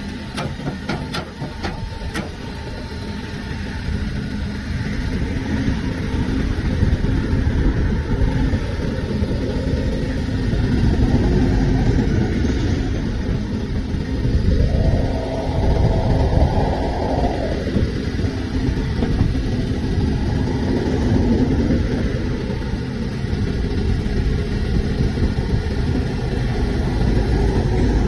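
Backhoe loader's diesel engine running steadily while the backhoe arm digs, with a few sharp clicks in the first two seconds. About halfway through, the engine note rises under hydraulic load for about three seconds, then settles back.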